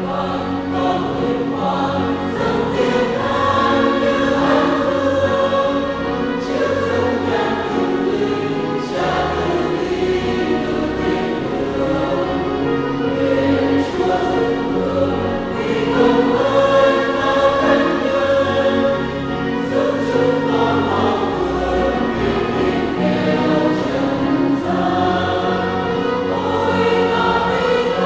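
Mixed choir of men's and women's voices singing a Vietnamese Catholic hymn to the saints, with full sustained chords.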